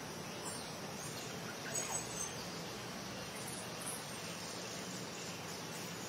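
Forest ambience: a steady hiss of insects with a few brief high bird chirps, the two loudest about two seconds in.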